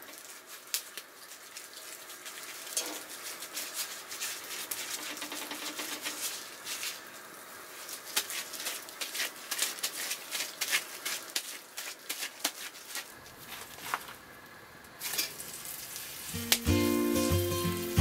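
Hot oil sizzling and spitting in a cast-iron skillet over a wood campfire, with many sharp irregular crackles. Music comes in near the end.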